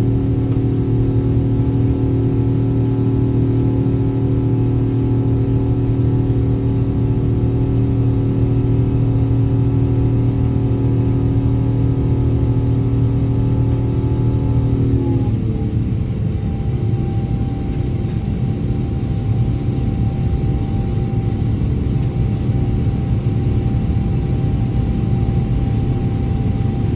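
Rolls-Royce Trent XWB turbofans of an Airbus A350, heard from the cabin over the wing while climbing after a full-power take-off: a loud, steady drone with a low hum and several engine tones. About halfway through, the tones drop in pitch and the sound eases a little as the engines are throttled back from take-off power.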